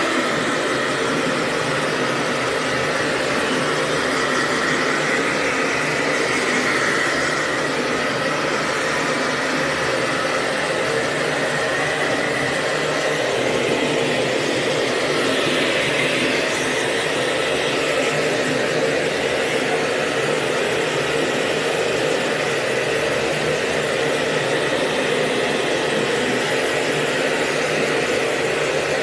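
Hair dryer running steadily: a constant rush of air over a motor whir, with a faint high whine.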